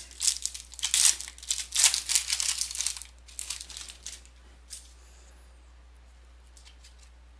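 Foil trading-card pack wrapper being torn open and crinkled: a dense run of crackling for about three seconds, a few scattered crackles after, then quiet.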